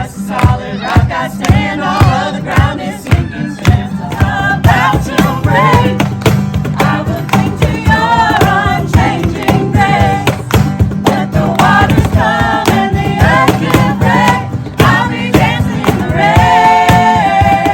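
Music: a song with voices singing over a steady drum beat, ending on a long held sung note.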